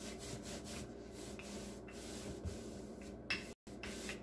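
Wooden rolling pin rolling and rubbing over dough on an oiled wooden cutting board, in repeated strokes. There is a brief louder sound about three seconds in.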